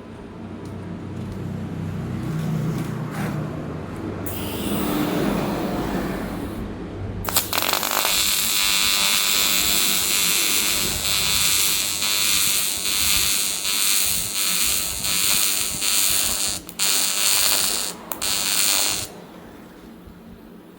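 AC TIG welding arc on aluminium, a steady harsh buzz that strikes up about seven seconds in and cuts off about two seconds before the end, with two brief breaks shortly before it stops.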